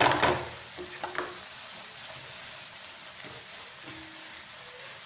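Scrambled egg (egg bhurji) sizzling steadily in a nonstick frying pan while a spatula stirs and scrapes it, being cooked through. There is a loud scrape of the spatula across the pan at the start and another about a second in, then fainter knocks.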